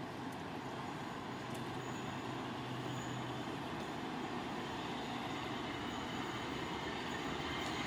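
Approaching LNER A4 Pacific steam locomotive 60019 'Bittern' heard from a distance: a steady rush of train noise that grows slowly louder.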